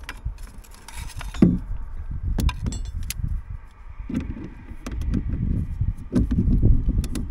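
Metal hand tools clinking and knocking as a combination wrench and then a socket ratchet are handled and fitted onto a bolt, with scattered sharp clicks and a short quick run of clicks, over a low rumble.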